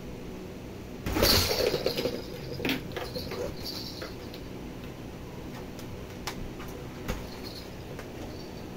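Nylon umbrella canopy rustling and crinkling loudly for about a second as a cat scrambles across it, followed by a few scattered light taps and clicks.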